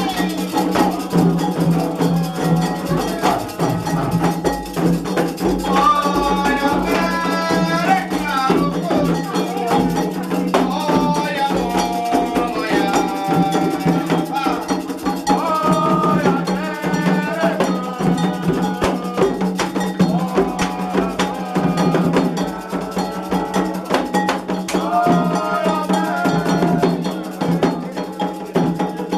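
Candomblé ritual music: an agogô bell struck in a steady, dense rhythm, with hand drums and voices singing over it.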